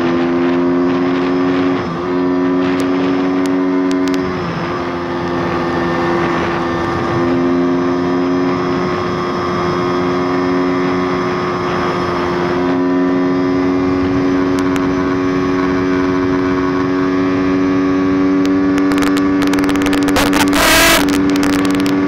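Pit bike's YX160 single-cylinder four-stroke engine running hard at high, steady revs on a top-speed run, its note dipping briefly twice in the first few seconds and then held flat, under a rush of wind noise.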